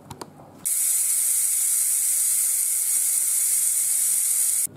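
Ninja Foodi pressure cooker's release valve venting steam in a loud, steady, high hiss, venting the pressure built up during cooking. It comes in sharply after a couple of clicks and cuts off suddenly near the end.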